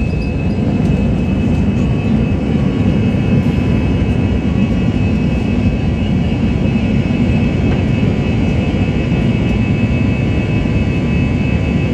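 Jet airliner's turbofan engines at takeoff power, heard from inside the cabin during the takeoff roll and liftoff: a loud, steady roar with a high whine held throughout.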